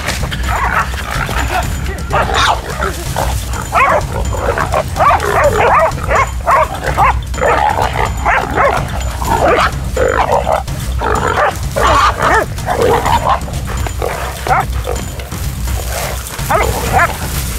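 Hunting dogs barking over and over in short, irregular bursts, above a steady low rumble.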